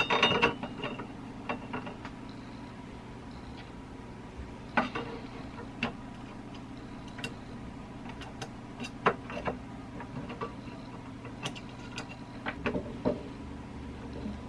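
Sharp clicks and taps of antique metal door hardware and screws being handled and fitted: a quick cluster at the start, then irregular single clicks every second or two.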